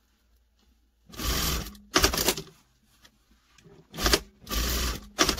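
SunStar industrial sewing machine stitching in short stop-start runs, sewing down the overlapped ends of an elastic band pressed flat. Two runs of under a second each begin about a second in, then three shorter runs follow near the end.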